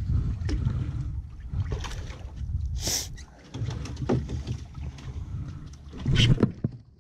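Wind rumbling on the microphone while fishing gear is handled in a small boat, with scattered knocks and clicks. A short bright hiss comes about three seconds in, and the rumble drops away soon after.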